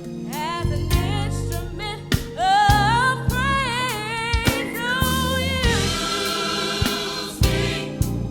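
Gospel music: a voice singing a melody with vibrato over a bass line and regular drum hits.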